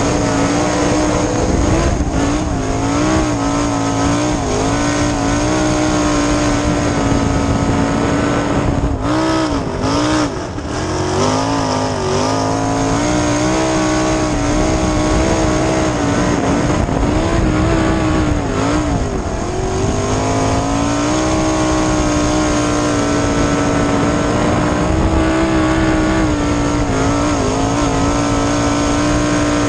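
410 sprint car V8 heard from the cockpit, racing at full throttle on a dirt oval. Its pitch holds high and dips briefly twice, about a third and two-thirds of the way through, where the driver lifts for the turns.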